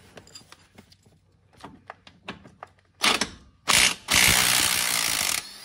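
Cordless power tool running in two short bursts and then one longer run of about a second and a half, backing out the bolt that holds the PTO clutch onto the engine shaft. Light clicks and handling noise come before it.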